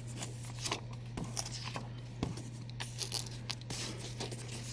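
Comic book pages being turned and handled: soft, scattered paper rustles over a steady low hum.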